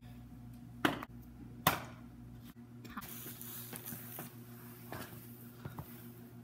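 Two sharp knocks on a hard floor, then a faint scuffing hiss with light taps as a child is dragged by the leg along a school hallway floor.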